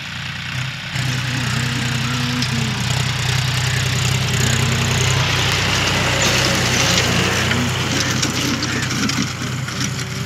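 John Deere 5050D tractor's three-cylinder diesel engine running steadily under load while pulling a disc harrow through dry soil, its note strengthening about a second in.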